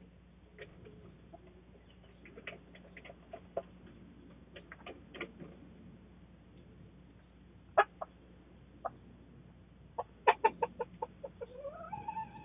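Chickens clucking: scattered single short clucks, then a quick run of about eight clucks near the end, followed by a longer call that rises and falls.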